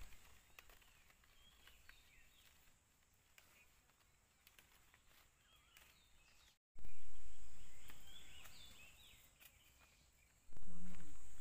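Outdoor rural ambience: scattered bird chirps over a steady high-pitched hiss. A loud low rumble starts abruptly twice in the second half and fades away each time.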